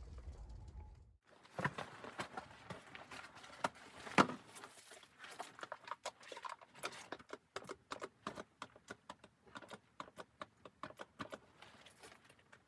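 A run of irregular sharp clicks and knocks, several a second, with one louder knock about four seconds in. A low rumble stops abruptly about a second in.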